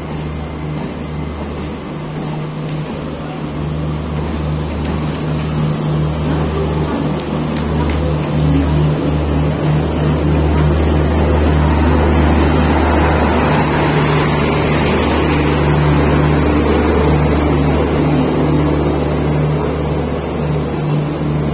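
Express train of LHB passenger coaches running past on the track beside the platform: a steady rumble of wheels on rail that grows louder toward the middle.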